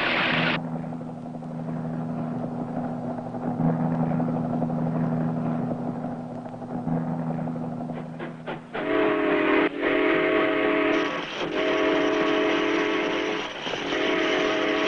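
Cartoon sound effects: a low steady hum, then from about nine seconds a whistle-like chord sounding in repeated blasts with short breaks between them.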